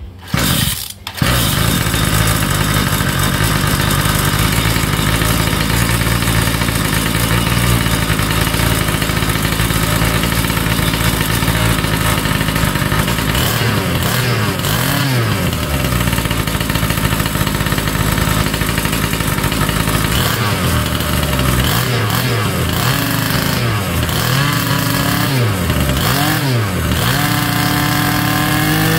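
Large-scale RC truck's two-stroke gas engine, with modified exhaust internals, catching and starting about a second in, then running steadily. From about halfway it is revved up and let fall back several times, rising in pitch and held high near the end.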